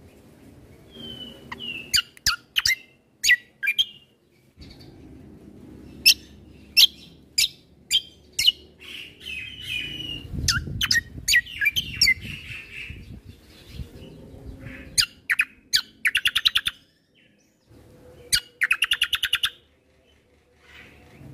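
Kecial kombo (cucak kombo) songbird singing: a string of sharp, separate chip notes mixed with short chattering phrases and two rapid buzzy trills in the second half.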